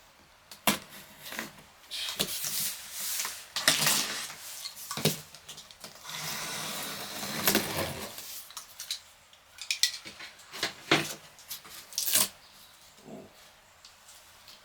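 A large cardboard monitor box being handled and opened: scattered knocks and clicks, with a longer scraping rub around the middle.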